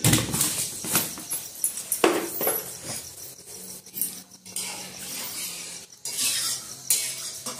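Steel spoon clinking and scraping against an aluminium kadai as vermicelli in milk is stirred, in irregular knocks.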